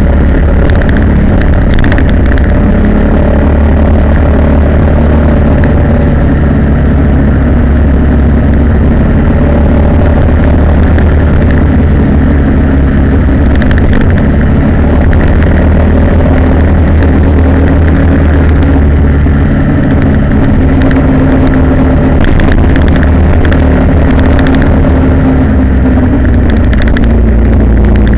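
Motor vehicle's engine running steadily on the road, heard from on board, its pitch shifting a few times as it speeds up and slows, over a heavy low rumble.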